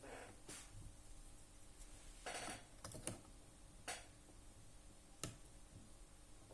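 Lock picks working inside a small PC lock: a handful of faint, sharp clicks and light scrapes at irregular intervals.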